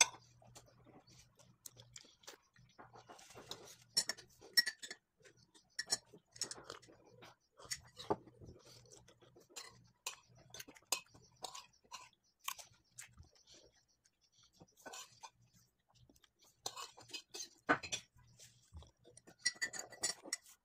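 Close-up chewing and mouth sounds of someone eating tomato slices, with a metal spoon clicking and scraping against a ceramic bowl and a louder clink near the end.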